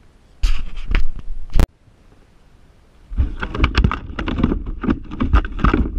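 Clattering and knocking of fishing gear against a plastic kayak hull: a burst of rattling that ends in one sharp knock, then after a pause a dense run of rapid clicks and knocks as the rod is swept up and a hooked bass is played.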